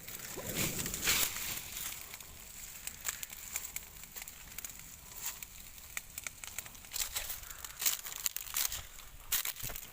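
Burning vegetation in a field crackling, with many irregular sharp snaps and pops.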